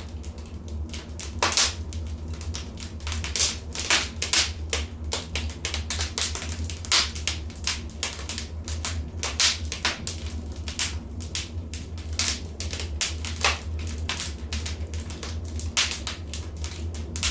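Fireplace fire crackling: irregular sharp pops and snaps, several a second and of varying loudness, over a steady low rumble.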